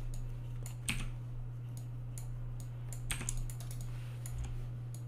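Scattered clicks from a computer keyboard and mouse, with sharper clicks about a second in and again around three seconds in. A steady low hum runs underneath.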